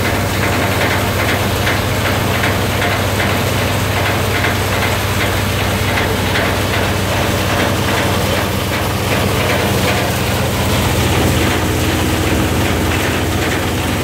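Paddy-wheat multicrop thresher running: a steady low drone under a quick, even rattling clatter, which eases a little in the second half.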